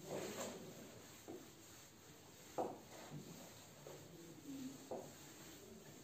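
Cloth wiping a whiteboard clean: faint rubbing strokes, about one a second, with a sharper swipe about two and a half seconds in.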